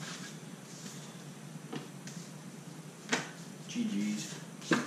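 Trading cards being gathered up off a playmat and a plastic deck box handled, with three short sharp clicks and knocks, the last two the loudest.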